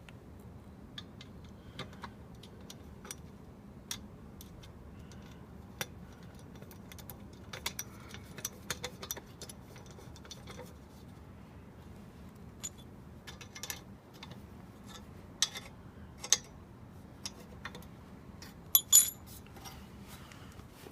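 Scattered light clicks and brief metallic jingles, irregular and unevenly spaced, over a faint steady hum. The loudest pair of clicks comes near the end.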